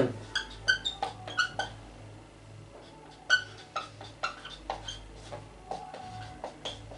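Marker squeaking on a whiteboard in a string of short, irregular strokes as a word is handwritten, over a steady low hum.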